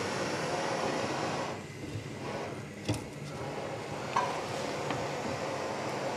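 Gas canister camping stove burning under a pot, a steady hiss. A couple of light knocks come about three and four seconds in.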